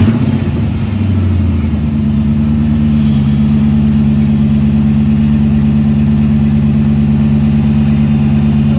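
Chrysler 300C engine catching on its first start after new spark plugs and coils, running at a fast idle that settles into a steady idle within the first three seconds. The owner wonders whether it is running funny and puts it down to old oil.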